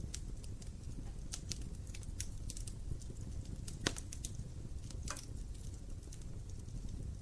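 Wood fire burning in a fireplace: a low steady rumble of the flames with scattered sharp crackles and pops of burning logs, the loudest a little before the middle.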